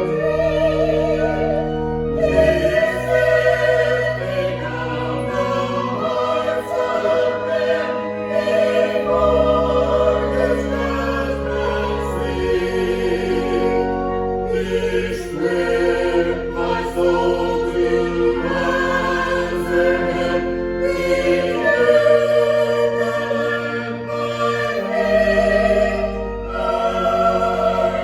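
A choir singing a sacred choral piece with vibrato over instrumental accompaniment, moving through long held chords on sustained bass notes.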